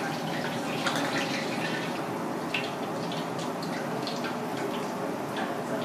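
Water bubbling in a small aluminium pot as a metal ladle stirs through it, with small splashes and light clinks scattered throughout.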